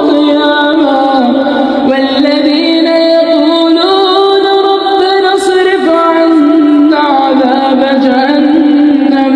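Melodic Quran recitation: a single voice holding long drawn-out notes, sliding and stepping between pitches in ornamented phrases.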